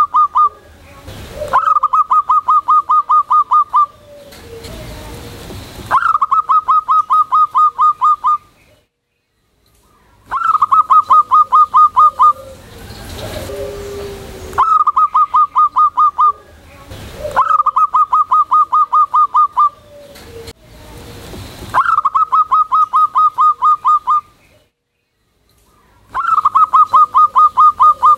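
Zebra dove (perkutut) singing loudly: a rapid staccato run of about a dozen cooing notes lasting about two seconds, repeated roughly every four seconds, seven times.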